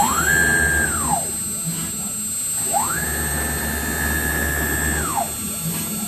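CNC router's stepper motors whining as the machine moves between hole positions while spotting holes with a center drill: each move rises in pitch, holds, then falls away. Two such moves, a shorter one first and a longer one about three seconds in, with a third starting near the end, over a steady hum.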